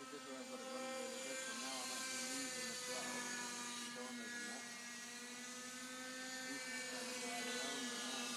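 Steady whine of a radio-controlled model rotorcraft flying overhead, one pitched hum with many overtones that wavers slightly in pitch. It grows louder about a second in.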